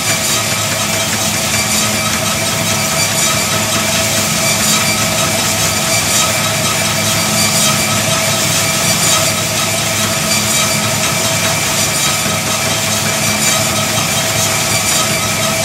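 Easy Up power treadmill running at a steady speed, its motor giving a constant whine over the hum of the moving belt.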